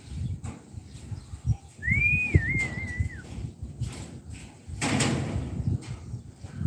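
A whistled tone that rises, then wavers and falls, lasting about a second and a half. Short knocks and a low rumble sound throughout, with a brief burst of noise about five seconds in.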